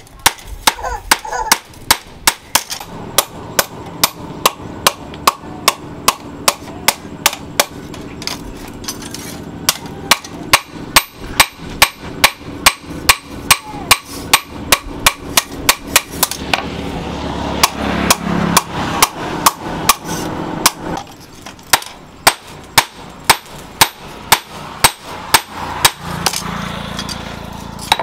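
Hand hammer beating a red-hot steel motorcycle disc brake rotor on a steel post anvil: an even run of sharp metal-on-metal blows, about two to three a second. The blows soften for a few seconds past the middle, then come back at full strength.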